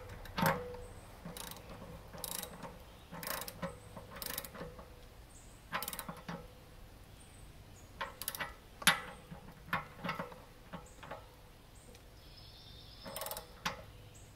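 Ratchet wrench clicking in short, irregular strokes while tightening a new anode rod into an RV water heater tank.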